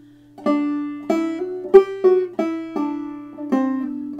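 Banjo played clawhammer style in double D tuning: a quick run of plucked, ringing notes, about three a second, starting about half a second in, working through drop-thumb strokes.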